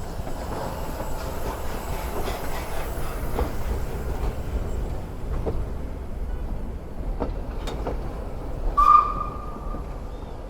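Steam-hauled heritage train running into the station, with a steady rumble and wheels clacking over the rail joints. Near the end comes a short, high squeal of about a second, the loudest sound.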